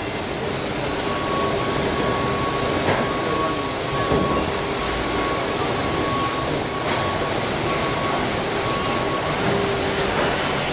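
Steady machinery noise of an automated car body shop with industrial robots at work: an even hiss and rumble with a faint steady hum, a faint on-off higher tone through most of it, and a few light clicks.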